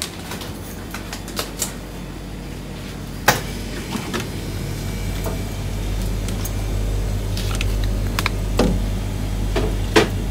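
Plastic-wrapped frozen food packets rustling and knocking as they are handled on a refrigerated shelf, with a few sharp clicks, over a steady low hum that grows louder about halfway through.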